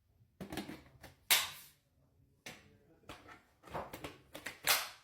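Plastic parts and packaging of a new cordless stick vacuum being handled: a string of clicks, knocks and scraping rustles, with the two sharpest knocks about a second in and near the end.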